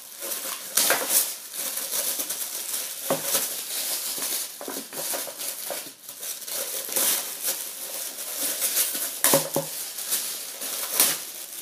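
Plastic wrapping crinkling and rustling irregularly as a lampshade is unwrapped by hand, with louder crackles now and then.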